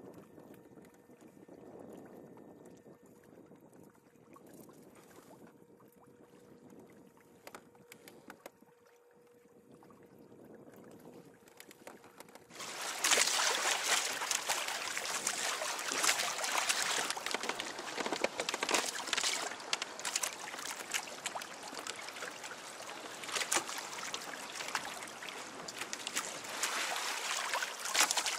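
Water rushing and splashing along the hull of a Hobie Adventure Island sailing kayak under sail, with wind on the microphone. It starts abruptly about halfway through, after a quiet stretch.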